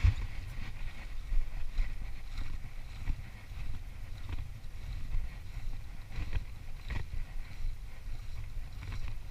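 Wind rumbling on the microphone and water lapping at a small boat's hull, steady throughout, with a few light taps, two of them close together about six and seven seconds in.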